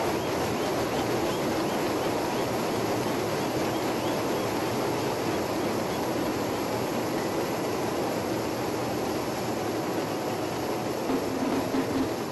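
Thousands of hand drums played at once as a continuous rumble, a dense steady roar with no clear beat. Near the end a few low held tones come up out of it.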